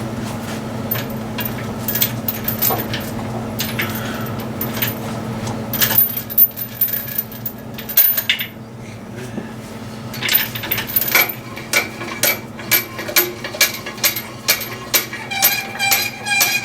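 Sharp metallic clicks and rattles of hand tools over a steady low hum, the clicks coming faster, about two a second, in the second half.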